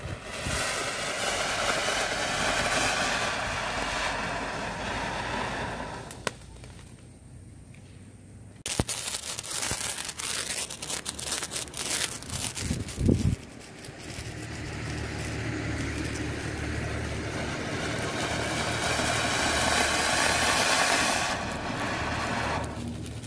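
Flower pot fireworks (ground fountains) burning: a steady rushing hiss of sparks for about six seconds, then dense crackling as several small cone flower pots spark together, then another long rushing hiss.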